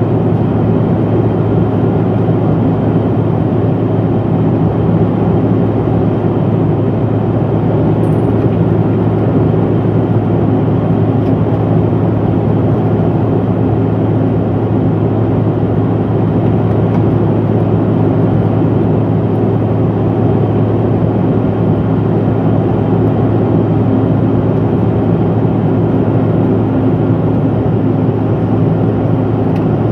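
Steady cabin drone of a Bombardier CRJ700 regional jet in flight, heard inside the cabin: the rear-mounted GE CF34 turbofans and the rushing airflow make an even, unchanging roar with a low hum underneath.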